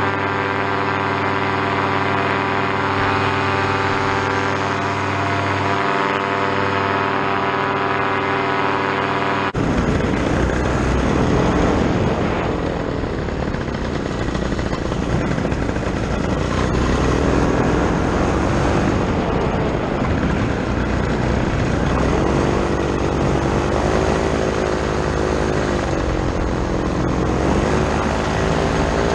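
Paramotor trike's Vittorazi Moster two-stroke engine and propeller running in flight, a steady even drone at first. After an abrupt cut about a third of the way in, the sound turns noisier and the engine note wavers up and down.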